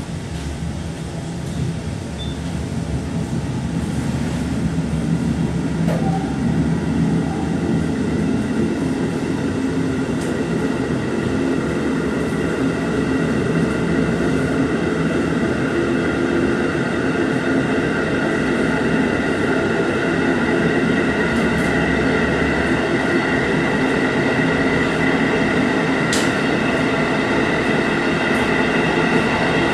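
JR 711 series electric train getting under way, its running noise growing louder over the first few seconds and then holding at a steady hum and rumble on the rails. There is a brief sharp click near the end.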